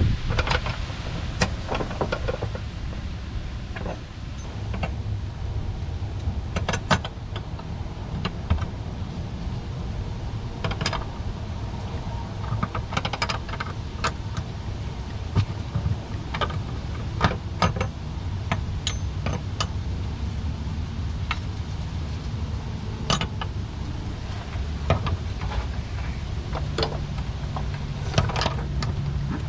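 Scattered light clicks and metallic clinks, as of metal objects being handled, over a steady low rumble.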